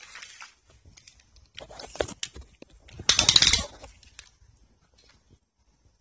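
Handling noise: rustling and small knocks as the camera is moved and a cloth tape measure is laid out beside the resin kit, loudest in a half-second rustle about three seconds in, then going quiet.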